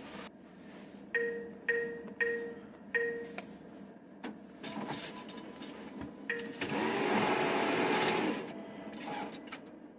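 Bank ATM beeping four times, about half a second apart, as its keys are pressed. Later the cash dispenser whirs for about two seconds as it counts out the banknotes.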